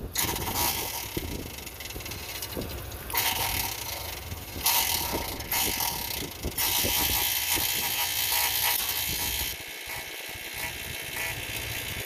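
Air-conditioner compressor powered by a manually pushed-in contactor, running with a low hum under a harsh hiss that comes and goes in long stretches. The condenser fan is not running; its failed motor is taken to have ruined the compressor.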